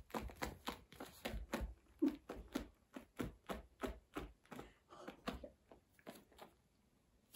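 Irregular, quiet clicks and taps, about three or four a second, from a kitten's claws catching on a woven mat as it grabs and kicks a small toy; they stop near the end.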